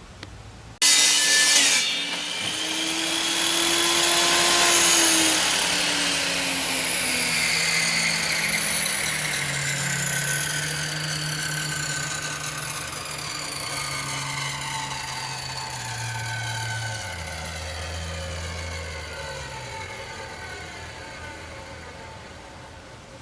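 Electric power saw making a brief cut, then its motor and blade spinning down, the pitch falling slowly and the sound fading over about twenty seconds.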